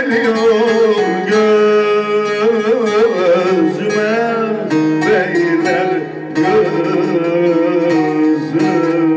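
Bağlama (long-necked Turkish lute) playing a folk tune, with a man's wavering sung notes over it in places.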